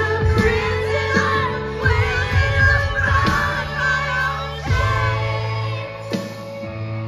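Live band performing: a woman sings lead into the microphone over electric guitar and a held low bass line.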